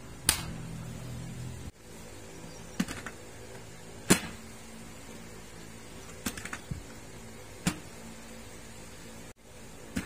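Sharp, short clicks and taps of hard plastic from a motorcycle helmet's visor and shell being handled, about seven in all, spaced irregularly with some in quick pairs.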